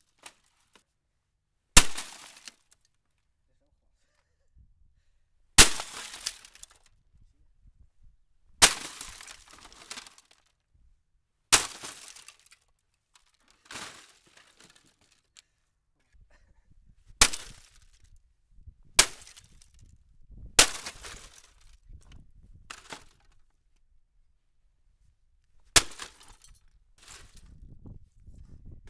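An axe chopping into a plastic printer: about ten separate blows a few seconds apart, each a sharp crack followed by plastic cracking and pieces clattering down.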